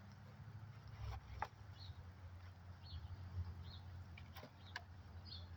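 Gloved hands digging through soil in a plastic container, giving a few sharp crackles and taps about a second in and again near the end, over a low steady rumble. A bird chirps faintly several times, about once a second.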